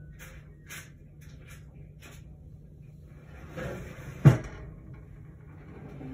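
Rummaging in a low kitchen cupboard: faint rustles and small knocks, then a louder scrape and one sharp bang about four seconds in.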